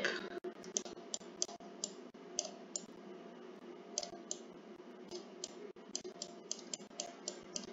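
Faint computer mouse button clicks, an irregular run of short, sharp clicks, pressed and released stroke by stroke while letters are drawn freehand in a paint program. A low steady hum runs underneath.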